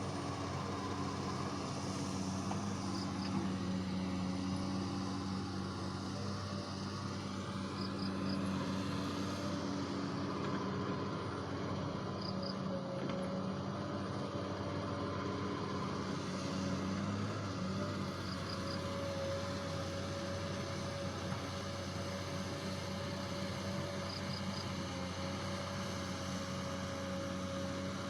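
XCMG excavator's diesel engine running steadily, with a thin steady whine joining about twelve seconds in.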